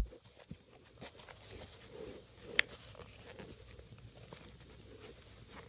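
Faint handling noises: soft rustles and scattered small clicks, with one sharper click about two and a half seconds in.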